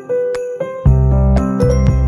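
Background music: a tinkling, bell-like melody, joined by deep bass notes a little under a second in.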